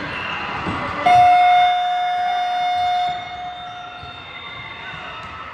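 Basketball scoreboard buzzer sounding one loud, steady tone about a second in. It holds for about two seconds, then fades away over about a second.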